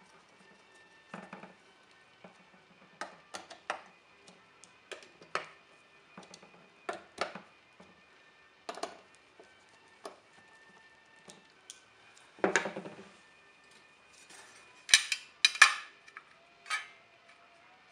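Light metallic clicks and clinks from hands working on the aluminium chassis of a Fairchild F800 flight data recorder, coming irregularly. A longer scraping clatter comes about twelve seconds in, and the loudest clanks come near the end as a sheet-metal cover plate is laid onto the unit.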